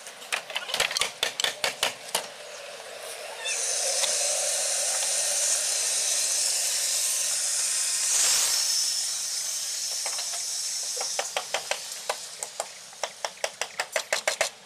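Rapid runs of sharp clicks and taps from hand work on a steel rebar mesh for a roof slab. Between them a steady high hiss starts suddenly a few seconds in and stops about seven seconds later.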